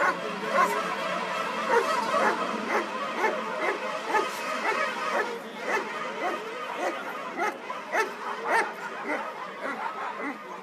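Dogs barking again and again, short barks coming about twice a second and overlapping at different pitches.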